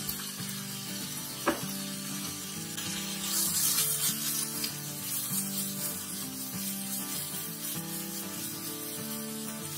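Vegetables and meat stir-frying in a pan: a steady sizzle that swells louder for a couple of seconds in the middle, with one sharp knock about a second and a half in.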